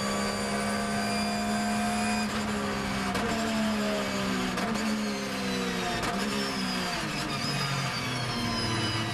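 Porsche 911 GT3 R race car's flat-six, heard from inside the cockpit, running at a steady high pitch at full throttle. About two seconds in, the pitch falls in a series of steps as the car brakes hard for a corner and drops down through the gears, about four downshifts.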